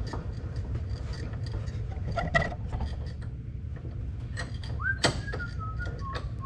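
Scattered knocks and clatter of metal pieces being handled and picked out, with two louder knocks about two and a half and five seconds in. After the second knock comes a wavering squeak that falls in pitch, over a steady low hum.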